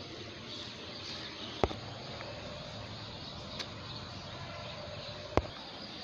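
Steady low outdoor background noise, broken by two sharp clicks about four seconds apart.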